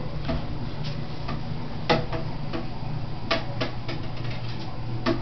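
Irregular sharp taps and knocks, about nine in a few seconds, the loudest about two seconds in: a cardboard wrapping-paper tube knocking against a door.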